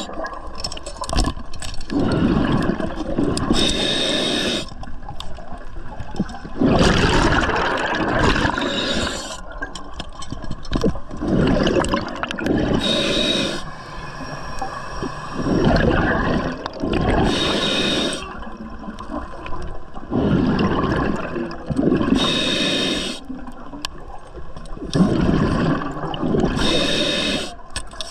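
Scuba diver breathing through a regulator underwater: bursts of exhaled bubbles gurgling and hissing, with the breathing cycle repeating every few seconds.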